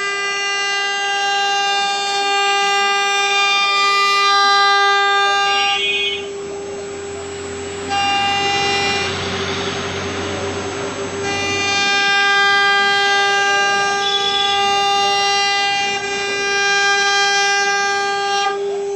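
CNC router spindle running with a steady high whine, its upper overtones fading out briefly twice. A rougher hiss joins in for a few seconds in the middle.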